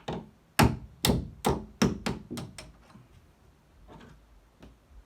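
Hammer driving a door hinge pin out of its hinge: about eight sharp metal taps in quick succession, then a couple of lighter taps near the end.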